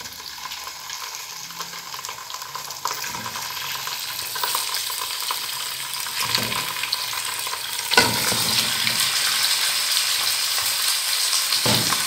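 Raw chicken pieces sizzling as they are dropped one by one into hot oil with whole spices and ginger-garlic paste in a nonstick pot. The frying hiss grows louder as more pieces go in, with a sharp knock about eight seconds in.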